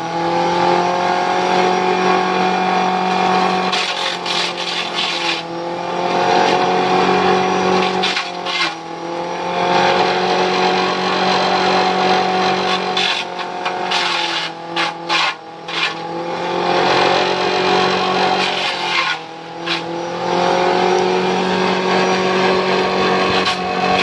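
Small chaff cutter (mesin cacah) driven by an electric motor through a V-belt, running while leafy branches are fed in and shredded. A steady motor hum with coarse chopping noise on top; the hum sags in pitch now and then and recovers, most markedly about four, eight and nineteen seconds in and between about thirteen and sixteen seconds.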